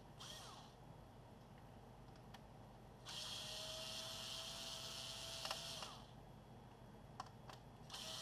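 Small electric screwdriver motor running in steady spells of about three seconds, a faint whine over a hiss, undoing the screws that hold the heatsink on a laptop's CPU and GPU. A brief whirr comes at the start and a couple of light clicks come between the spells.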